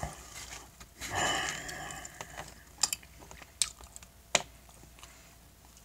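Close-up eating sounds from a fork and a takeout plate lunch: a short breathy rustle about a second in, then a few sharp clicks and mouth smacks as the fork goes into the mouth and he chews.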